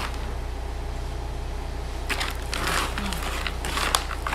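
Chunky potting mix of pine bark chips and LECA clay balls being scooped and turned over by hand and plastic scoop in a plastic tray: a dry rustling crunch that picks up about two seconds in, with a sharp click near the end, over a steady low hum.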